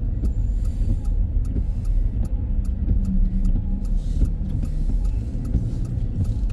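Inside a moving car's cabin: a steady low rumble of road and engine noise while driving on a snowy road, with rapid faint ticks on top.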